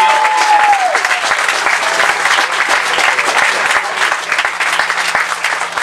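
Audience applauding: dense, steady clapping from a crowd at a rally. A held voice fades out in the first second.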